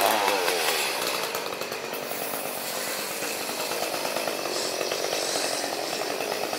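Chainsaw engine running, its revs falling away in the first moment and then holding at a steady run.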